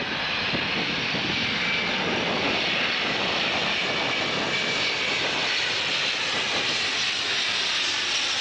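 The four turbofan jet engines of a C-17 Globemaster III as it passes low directly overhead: a steady, even jet engine noise with no breaks.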